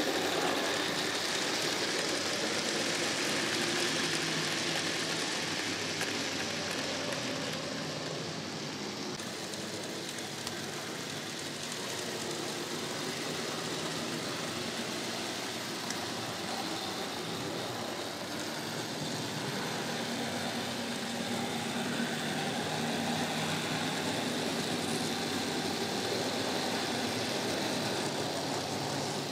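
N gauge model diesel locomotives running on model track: a steady whirring of the small electric motors with the rumble of metal wheels on the rails.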